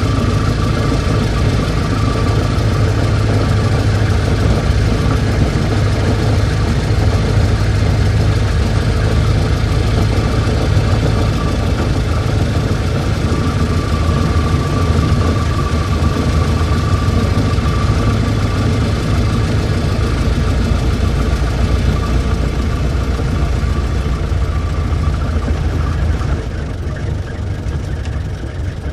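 Old car's engine running steadily with a low rumble, getting quieter about 26 seconds in.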